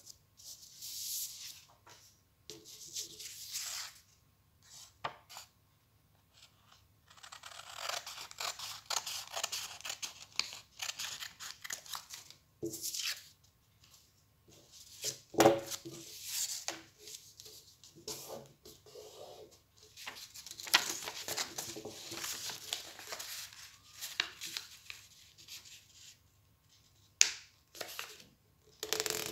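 Sheets of paper being handled, slid and folded by hand on a tabletop: irregular bursts of rustling and rubbing with quiet gaps between, and a sharp knock about halfway through, the loudest sound.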